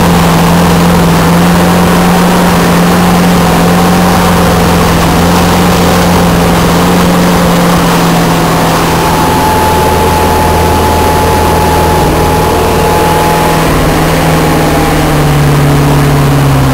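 Motorboat engine running steadily at speed, with water rushing past the hull. The engine note drops slightly near the end.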